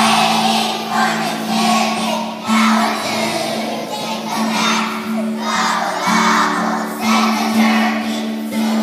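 A choir of young children singing a song together over an instrumental accompaniment with held low notes.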